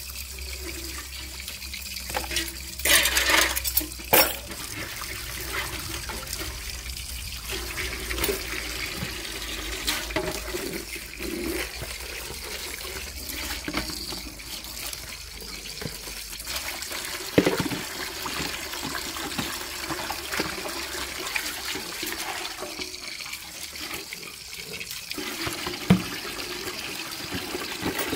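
Water running and splashing as dishes are washed and rinsed by hand, with a few sharp knocks, the loudest near the start.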